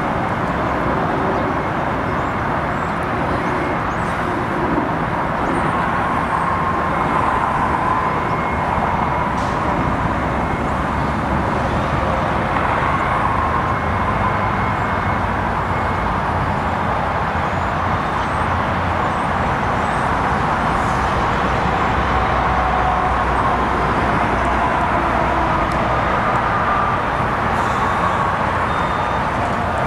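Steady rumble of vehicle engines and road traffic, with faint tones drifting slowly in pitch.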